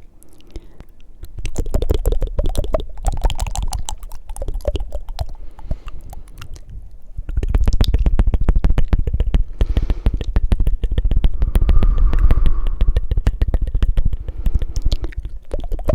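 Close-miked ASMR mouth sounds: fast, wet tongue flutters and mouth clicks in a dense rapid stream, over a low rumble of breath on the microphone. It grows louder about a second and a half in and again about halfway through.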